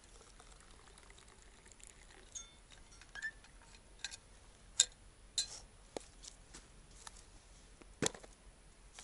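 Fishing tackle being handled: a scattering of small clicks and clinks, the loudest about midway and another near the end.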